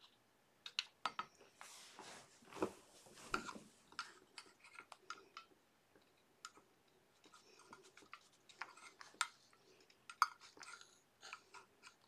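Faint, irregular clicks and rustles of a hot glue gun being handled, its trigger squeezed and its cord dragged, as glue is laid down to tack a small DC motor to its mount.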